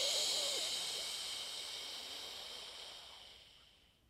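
A woman's long exhaled "shhh", the liver sound of the Taoist Six Healing Sounds, a steady hiss of breath that fades out near the end.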